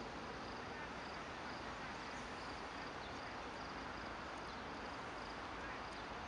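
Quiet outdoor ambience: a steady hiss with a faint, high insect-like chirp repeating roughly once a second.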